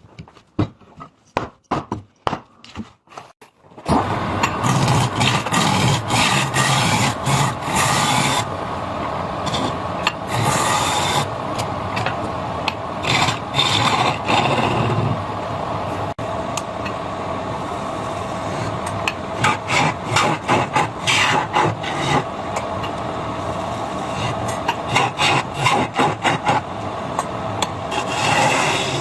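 Wood lathe turning, a chisel scraping and cutting the spinning wood. It starts as a run of short separate scrapes, and about four seconds in it becomes a continuous loud cut over the machine's hum.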